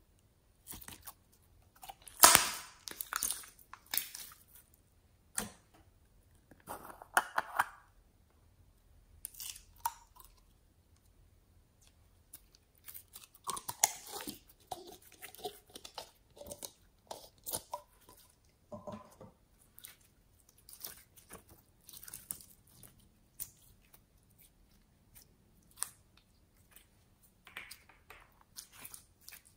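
Clear slime being stretched and squeezed by hand, giving sticky crackles, small pops and squelches in irregular bursts, loudest about two seconds in. Around the middle, pink clear slime is worked out of a plastic cup.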